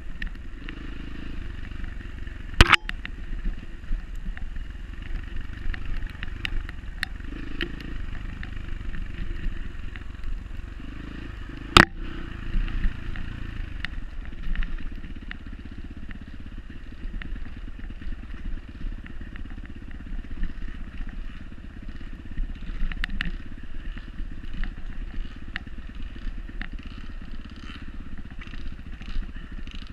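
Dirt bike engine running steadily on an enduro trail ride, with light clatter over rough ground. Two sharp knocks stand out, one about three seconds in and one near twelve seconds.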